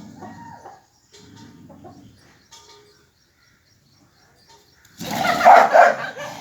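A rooster and a dog fighting: wings flapping and faint scuffling, then a sudden loud outburst of animal cries about five seconds in.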